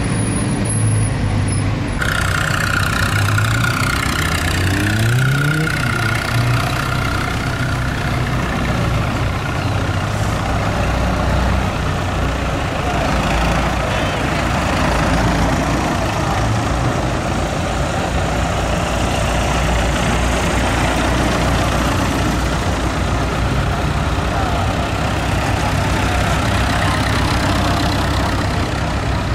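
Farm tractor engines running as tractors drive slowly past in a line. About five seconds in, one engine rises in pitch.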